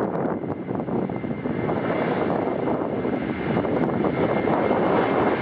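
Airliner engine and cabin noise heard from inside the passenger cabin: a steady rush with a faint high whine, growing slightly louder.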